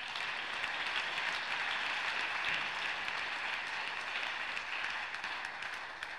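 Spectators applauding a won point, a dense steady clapping that eases off near the end.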